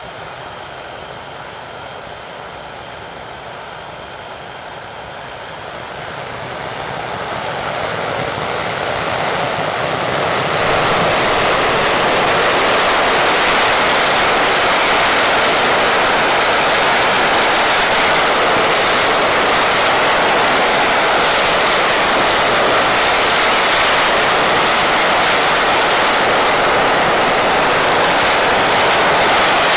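English Electric Lightning's twin Rolls-Royce Avon turbojets on a ground run: a high whine and rush at first, then spooling up over about five seconds into a loud, steady roar at high power, the nozzles glowing.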